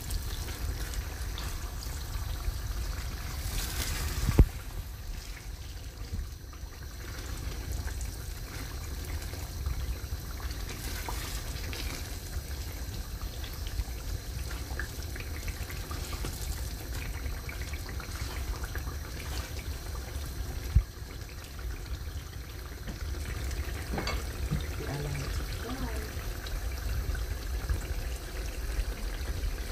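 Thick tomato stew bubbling and spluttering in a stainless steel pan while a silicone spatula stirs through it. Two sharp knocks stand out, one about four seconds in and one about twenty-one seconds in.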